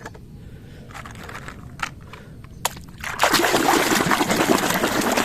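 A few light clicks, then about three seconds in, water splashing and sloshing steadily as a toy is washed by hand in a tub of water.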